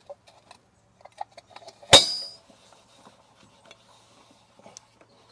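Light metallic clicks and taps, then about two seconds in a single sharp metal clang that rings briefly: a Citroën DS's metal hubcap being knocked home onto the front wheel.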